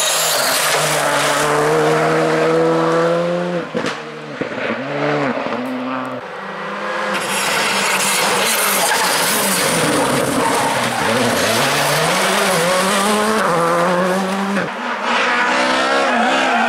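Rally cars at full throttle, engine pitch climbing and dropping again and again through gear changes and throttle lifts. The sound changes abruptly twice as one car gives way to another.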